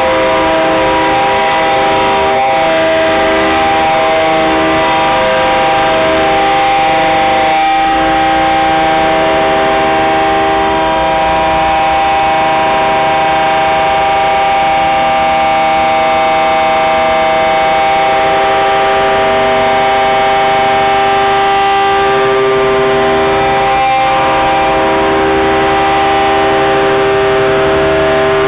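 Air horn of a KCSM GP38-2 diesel yard locomotive blown in one long, loud, continuous chord of several notes. The chord shifts slightly about eight seconds in and again past twenty seconds.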